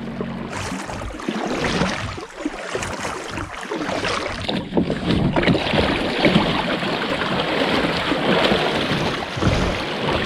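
Water splashing and wind noise around a fishing kayak, a loud, uneven rushing sound.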